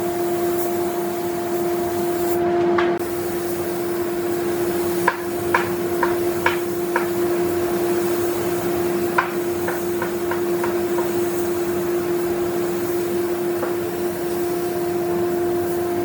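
A steady mechanical hum from a small running machine motor, with two short runs of light, sharp knocks or taps about five and nine seconds in.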